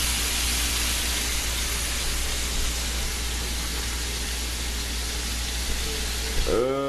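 Tri-tip steaks sizzling in a frying pan: a steady hiss, with a low steady hum underneath.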